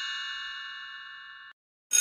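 A bell-like chime sound effect ringing out and fading, cut off abruptly about three-quarters of the way through. After a brief silence, a loud buzzing tone with many pitches starts at the very end.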